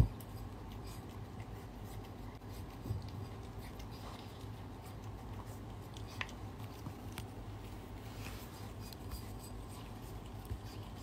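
A cat eating and licking from a ceramic bowl: scattered small clicks of chewing and licking over a low background hum, with one sharp knock at the very start.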